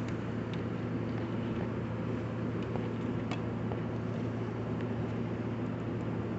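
Steady low machine hum in a workshop, with a few faint light clicks of metal being handled.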